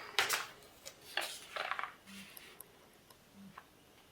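Small plastic gel polish pots and their boxes being handled, giving a few light clicks and rustles in the first two seconds.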